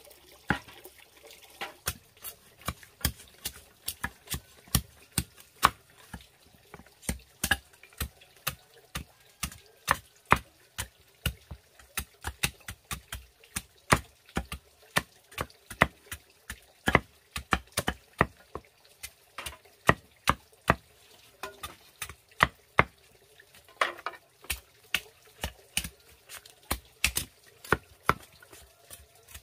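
Heavy chopping knives striking bamboo strips, shaping them into stakes: a long run of sharp, uneven chops, about two to three a second, from two people working at once.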